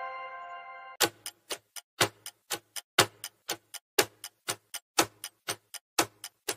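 A chime fades out over the first second. Then a countdown timer's clock ticking starts, about four ticks a second with a stronger tick on each second.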